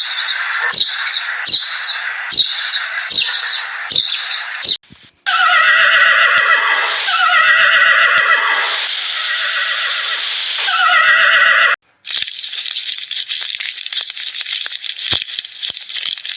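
Horse whinnying, several calls falling in pitch, from about five seconds in until about twelve seconds. Before it come sharp clicks about every 0.8 s over a hiss, and after a sudden cut a steady high hiss.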